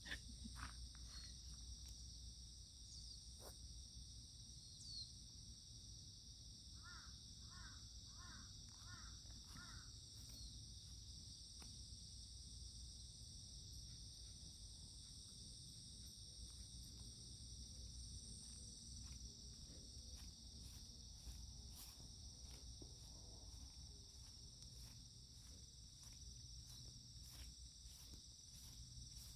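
Faint, steady chorus of insects shrilling, with a bird calling five times in quick succession about seven seconds in and a few scattered light clicks.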